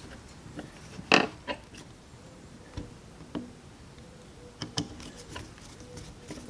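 Sparse light clicks and taps of small metal parts and a screwdriver being handled while the starting-carburetor cover screws are driven into the aluminium throttle body of a Bing 64 carburetor, the loudest about a second in.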